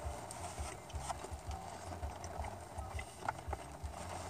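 Someone chewing chicken nuggets close to the microphone: soft, irregular mouth and chewing sounds with scattered small clicks over a low handling rumble.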